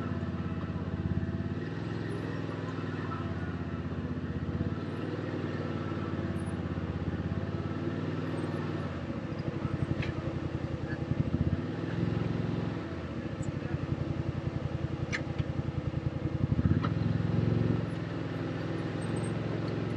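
Side-by-side UTV engine running as it drives along a dirt trail, the throttle opened and eased a few times, with a few sharp clicks.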